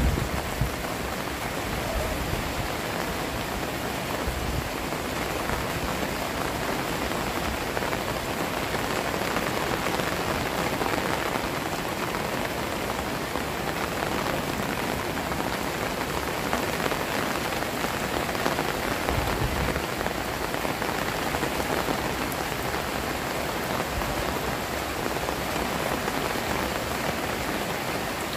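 Heavy rain falling steadily onto floodwater, a dense, even hiss of countless drops on the water's surface.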